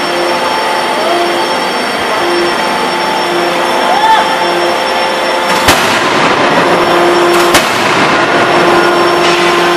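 Two heavy blows of a 10-ton electro-hydraulic die hammer's ram on a red-hot flange blank in the die, about two seconds apart, over steady loud machinery noise.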